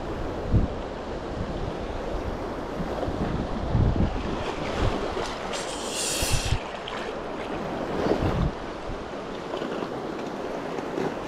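Steady rushing water of a river rapid, with gusts of wind buffeting the microphone in low thumps. A short, higher hiss rises over it about six seconds in.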